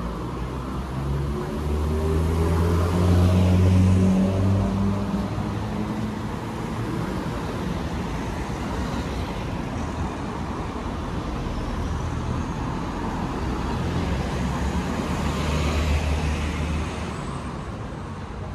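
Street traffic passing by: a motor vehicle's engine hum swells loudest about two to five seconds in, with its pitch rising as it pulls away, and a second vehicle passes near the end, over a steady hiss of tyres on the road.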